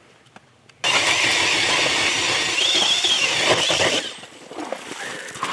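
Power ice auger boring a hole through the ice, loud and steady, starting abruptly about a second in and stopping about four seconds in.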